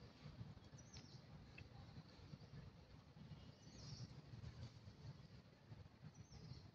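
Near silence: faint outdoor ambience with a low rumble and three brief, faint high chirps.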